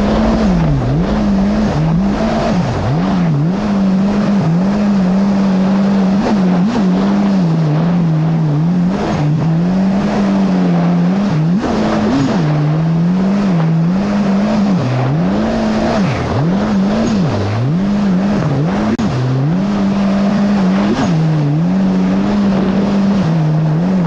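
Yamaha GP1800R SVHO jet ski's supercharged four-cylinder engine running hard. Its pitch drops and climbs back again many times as the throttle is eased and reopened, over rushing wind and water noise.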